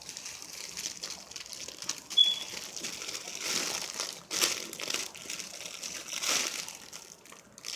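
Plastic packaging crinkling irregularly as a squishy toy still in its bag is handled and squeezed, with a brief high squeak about two seconds in.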